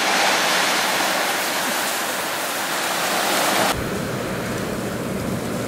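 Steady, loud rushing hiss of wind in a snowstorm. About two-thirds of the way in the hiss drops off suddenly and a low rumble of wind buffeting the microphone takes over.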